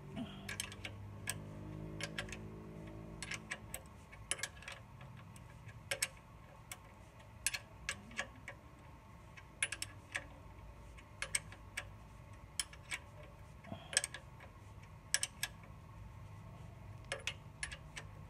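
Ratcheting box-end wrench clicking in short, irregular runs as it is swung back and forth, tightening a mounting bolt on a clutch slave cylinder.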